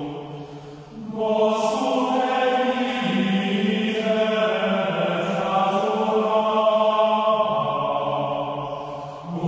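Plainchant sung as a soundtrack: voices holding long, slow notes in phrases. One phrase ends and the next begins about a second in, and another breath pause comes near the end.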